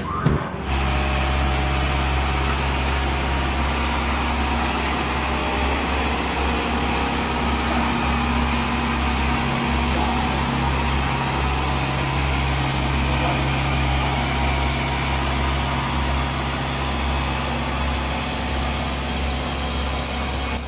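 Caterpillar CS10 GC single-drum road roller's diesel engine running steadily as the machine drives along, a constant low hum.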